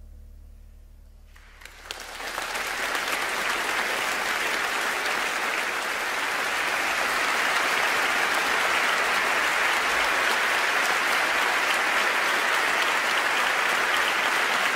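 Audience applauding in a large cathedral: the last low note of the music dies away, and about two seconds in the clapping starts, swells over the next few seconds and then holds steady.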